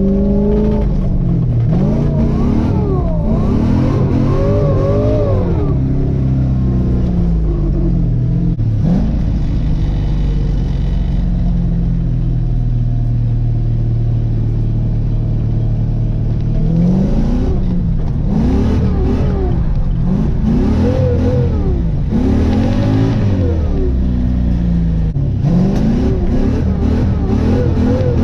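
LS1 V8 engine in a 1987 Mazda RX-7 FC revving hard up and down again and again on the throttle while drifting, with a steadier stretch at lower engine speed in the middle.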